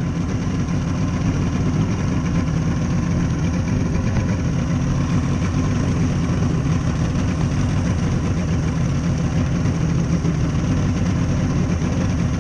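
Outboard motor running steadily at low trolling speed, pushing a small fishing boat.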